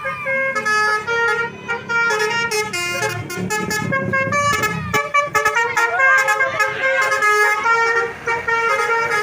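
A bus's multi-tone 'telolet' horn playing a quick tune of stepped notes. Under it the bus engine rumbles, heaviest a few seconds in, as the bus passes.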